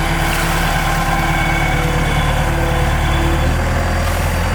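Large excavator's diesel engine running steadily, its low note shifting slightly about three and a half seconds in.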